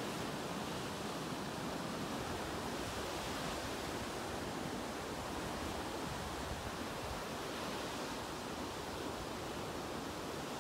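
Surf breaking and washing up a sandy beach: a steady rush of waves, choppy and whitecapped.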